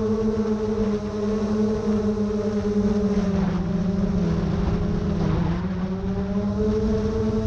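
GoPro Karma quadcopter drone's motors and propellers humming steadily, the pitch wavering up and down, with a dip about five and a half seconds in.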